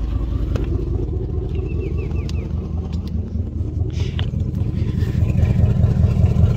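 1999 Dodge Durango's 5.9-litre Magnum V8 idling roughly with a miss, which the owner traces to an arcing spark plug wire. A few light clicks ride over the rumble, and the engine grows a little louder near the end.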